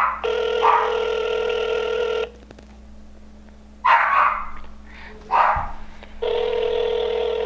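Phone ringback tone over speakerphone, an outgoing call ringing at the other end: a steady two-second ring, a four-second gap, then the next ring starting near the end. A dog barks twice in the gap between rings.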